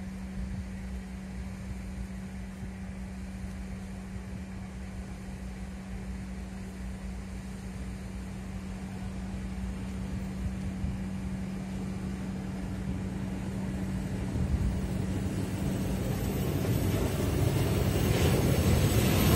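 A ČD Cargo class 230 electric locomotive hauling a freight train approaches, its wheels' rumble on the rails growing steadily louder over the last several seconds as it draws near and passes. A steady low hum sounds throughout.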